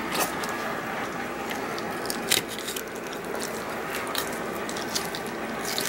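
Knife cutting through the gills of a whole European seabass (branzino), a run of irregular crunching clicks and crackles over a steady hiss.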